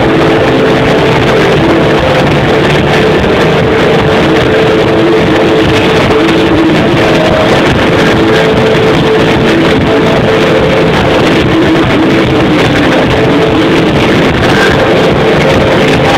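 A rock band playing live at full volume, with held guitar notes over a dense, unbroken wash of sound. The recording is heavily overloaded and distorted.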